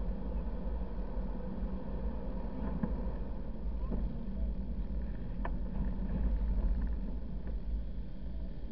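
Car driving along a sandy dirt road: a steady low rumble of engine, tyres and buffeting, with one faint click about five and a half seconds in.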